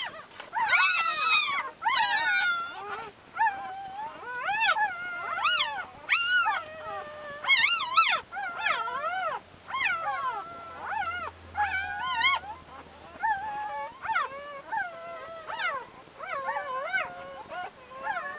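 Newborn Labrador retriever puppies whimpering and squealing: many short, high-pitched cries that rise and fall, coming one after another and sometimes overlapping, as the litter jostles to nurse.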